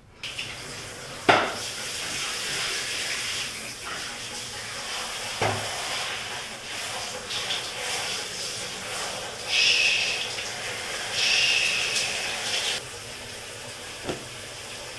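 Shower spray running in a cubicle as a border collie is washed, a steady hiss of water with two louder spells of spray about ten and twelve seconds in, after which it runs quieter. Two sharp knocks sound about a second and five seconds in.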